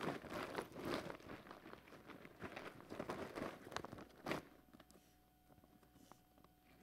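Clear plastic bag of paper raffle tickets being handled and shaken to mix them: an irregular run of crinkles and rustles with one louder crackle about four seconds in, dying away over the last two seconds.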